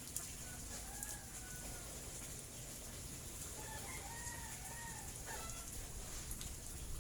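Chickens calling faintly: a few short rising-and-falling notes about a second in, then a run of them around four to five seconds, over a steady hiss.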